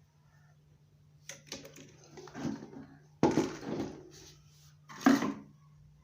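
Small hard plastic parts and screws being handled, clattering and knocking a few times, with two sharper knocks about three and five seconds in. A faint steady low hum runs underneath.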